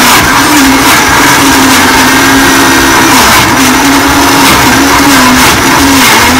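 Blendtec blender motor running at high speed with a Twister jar. Its pitch dips and recovers every second or so as the twisting tamper lid pushes a thick mixture down into the blade.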